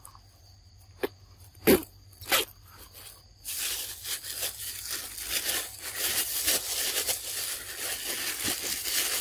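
A few sharp crunching clicks, then from about three seconds in a continuous crinkling rustle close to the microphone. A faint, steady, high insect drone runs underneath.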